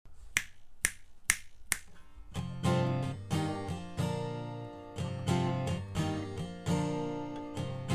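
Song intro: four sharp, evenly spaced clicks counting in, about two a second, then a guitar playing strummed chords from about two seconds in.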